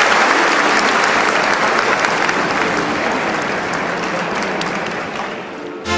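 Large audience applauding, the clapping slowly dying down and cutting off abruptly near the end.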